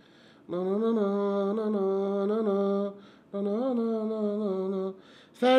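A man humming a slow tune in two long held notes, with a short break about three seconds in.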